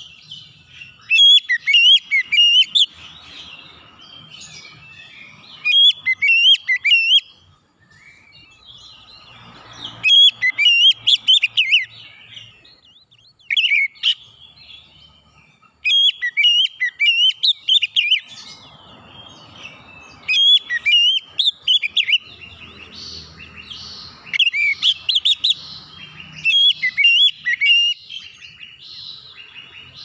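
Oriental magpie-robin (kacer) singing: loud phrases of quick, sliding whistled notes, each a second or two long, with short pauses between them, running almost without a break near the end.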